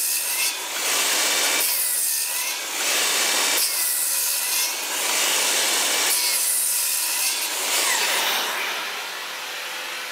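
Cordless Milwaukee M18 Fuel 7-1/4" rear-handle (worm-drive style) circular saw making several quick cuts through a 2x4, each cut about a second long, with the motor's whine between cuts. Near the end the cutting stops and a steadier, quieter rushing noise carries on.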